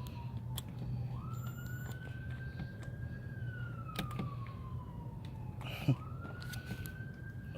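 Wailing emergency-vehicle siren, its pitch climbing and then sliding slowly down in cycles about five seconds long, over a steady low hum. A few light clicks, the sharpest about six seconds in.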